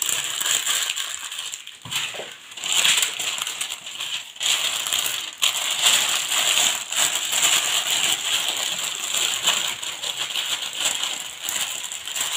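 Parchment paper crinkling and rustling as hands fold it tightly into a parcel around meat on a baking tray, with brief pauses about 2 and 4.5 seconds in.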